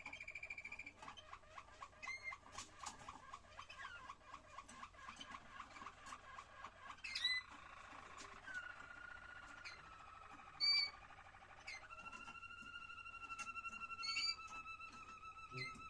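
Waterslager (Malinois) canary singing a rolling, bubbling water tour ('klokkende'): a long run of fast repeated notes, then a steadier trill, then long held whistled notes in the last few seconds. A few short, sharper chirps break in, the loudest about seven, ten and fourteen seconds in.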